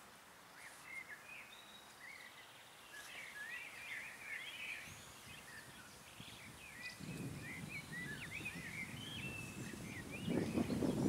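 Songbirds chirping and warbling with many quick high notes. From about seven seconds in, a rustling starts and grows louder toward the end.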